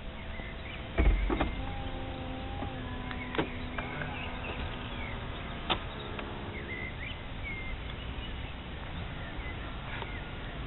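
Peugeot 207 CC's electro-hydraulic folding hardtop closing: a heavy thump about a second in, then the motor humming steadily with two sharp clicks as the roof and boot lid lock down, stopping about six and a half seconds in.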